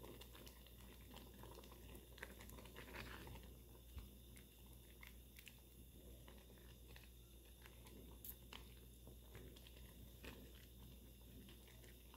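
Faint stirring of thick bean broth in an aluminium pot with a silicone spatula: scattered soft clicks and scrapes over a low steady hum.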